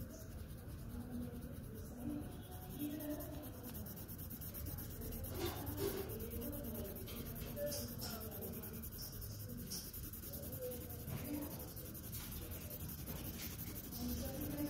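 Red colored pencil shading on drawing paper, its tip scratching across the sheet in repeated strokes.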